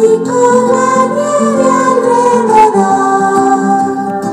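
Christmas carol music, singing over plucked strings, played loudly at maximum volume through an Amazon Echo Dot's small built-in speaker.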